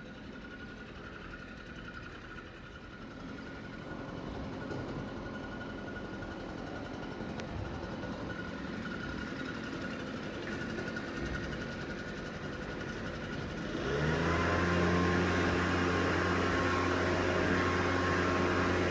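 Distant garbage truck engine running low at first, then about fourteen seconds in it jumps to a steady, louder high idle and holds it for about five seconds. That is the engine speeding up to drive the hydraulics for lifting and packing.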